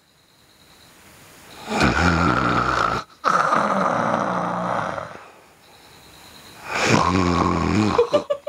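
A person snoring loudly: long snores of one to two seconds each, three in all, with a quieter breath between the second and the third.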